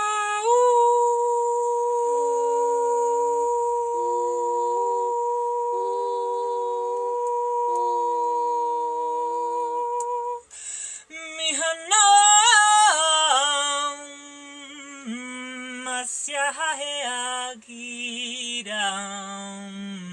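Wordless female singing, an a cappella vocalising in a small room. For about the first ten seconds a steady drone tone holds beneath the voice as it steps between a few notes. After that the voice breaks into a freer line with gliding, quickly ornamented notes.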